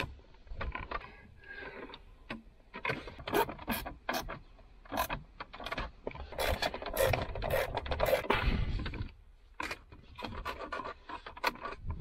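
Screws being driven back into a car's plastic centre console by hand: a screwdriver scraping and rubbing in the screw heads, with many sharp clicks of plastic trim, busiest in the middle of the stretch.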